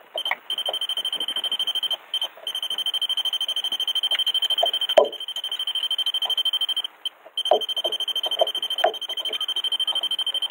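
Electronic beeper sounding a rapid, high-pitched pulsing beep, about ten beeps a second, with two short breaks. A single knock about five seconds in, and a few softer knocks and rustles.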